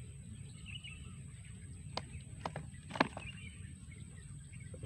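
Quiet outdoor ambience: faint bird chirps over a low steady rumble and a steady high whine, with a few sharp clicks, the loudest about three seconds in.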